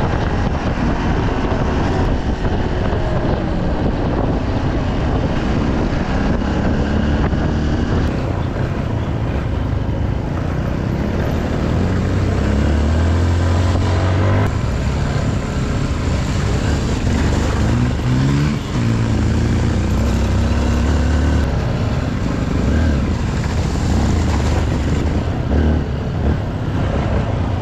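Honda CRF150L's single-cylinder four-stroke engine running under way, steady, with the revs climbing and dropping a few times about halfway through.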